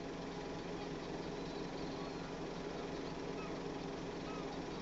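Outdoor background: a steady low hum with a hiss under it, and a few short, faint, high chirps scattered through.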